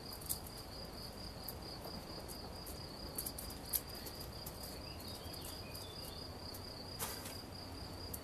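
Dry cabbage seed pods crackling in small scattered clicks as they are crumbled by hand, over the steady, even high trill of a cricket.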